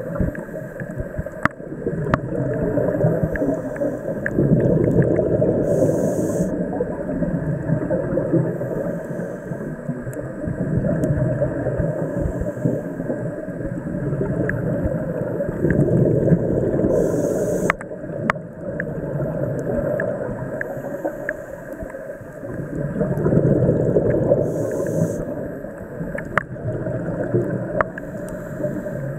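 Scuba diver breathing through a regulator underwater: exhaled bubbles swell and fade every six or seven seconds, and a short hiss of inhalation comes three times, with faint scattered clicks.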